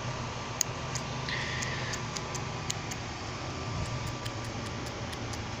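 Small bonsai clippers snipping leaves and shoots: a dozen or more sharp clicks, irregularly spaced, the loudest about half a second in, over a steady low hum, with a brief hiss about a second in.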